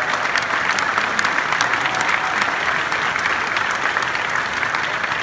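Large audience applauding, a dense, steady clapping that eases off slightly near the end.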